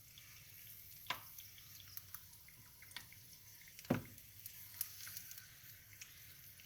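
Eggs frying in oil in a pan: a faint sizzle with scattered small pops and crackles, and two sharper clicks, about a second in and about four seconds in.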